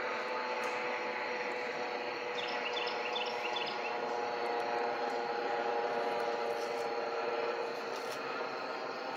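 Helicopter flying past at a distance, a steady engine-and-rotor drone that swells slightly midway.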